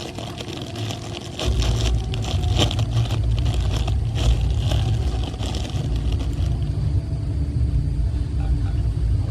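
Rain pattering and crackling, joined about a second and a half in by a loud, deep rumble that cuts off suddenly at the end.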